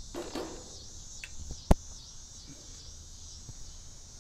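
Crickets chirping steadily in a pulsing chorus, with one sharp click a little under two seconds in.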